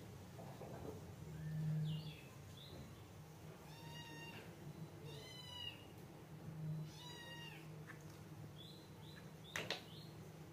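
A small kitten meowing: a few short, high-pitched meows about a second and a half apart, with fainter chirps between them. A low hum swells briefly about two seconds in, and there is one sharp click near the end.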